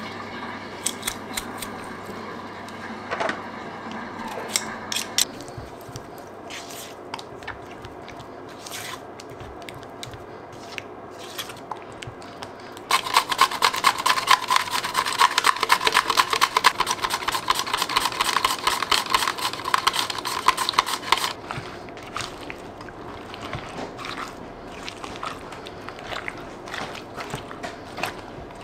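Cucumber being sliced on a handheld mandoline slicer over a bowl: a dense run of rapid rasping strokes lasting about eight seconds in the middle. Before it come scattered clicks and scrapes from a garlic press, and near the end quieter scraping as a spatula stirs yogurt and cucumber slices in a ceramic bowl.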